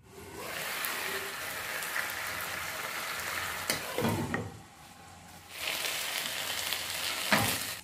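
Marinated tandoori chicken pieces sizzling in oil in a non-stick frying pan over a low flame, with the marinade cooking down. The sizzle drops away briefly about halfway through, then picks up again as the pieces are turned with a spatula and fork.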